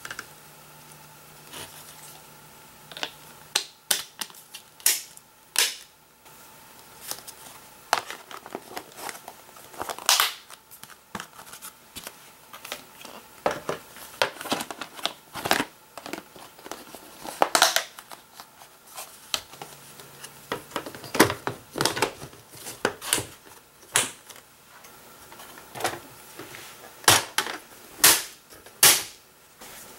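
Hard plastic toy track pieces being handled, fitted and snapped together, making irregular clicks, knocks and clatters, some in quick runs.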